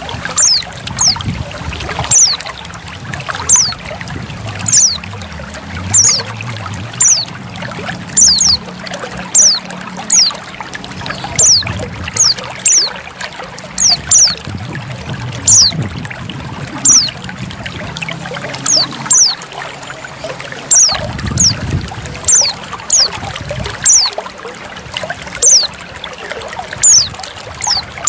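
Female white-eye repeating short, high, falling call notes a little over once a second, over a steady trickle of running water.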